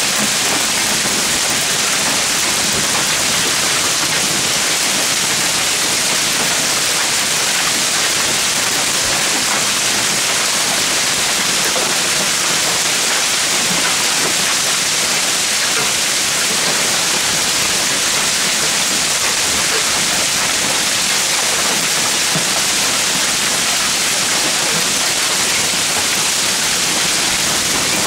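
Hail and rain pelting down in a thunderstorm: a dense, steady hiss that does not let up.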